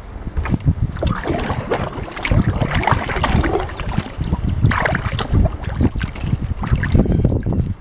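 Wind buffeting the microphone of a camera mounted on a kayak, a heavy uneven rumble, with water splashing and lapping against the kayak's hull at irregular moments.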